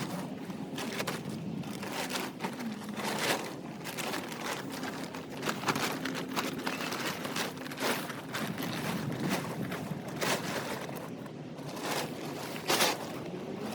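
Handling noise from putting up a carport: many short rustles and knocks as the canopy cover and frame are worked, with one sharper, louder knock near the end.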